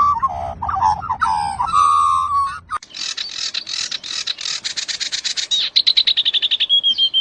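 A bird calling: lower-pitched warbling whistles at first, then, after a sudden break about three seconds in, a fast run of high chirps that speeds up and ends in a short trill.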